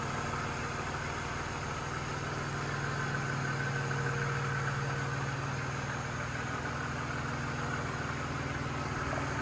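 BMW Z3's straight-six engine idling steadily with the hood open.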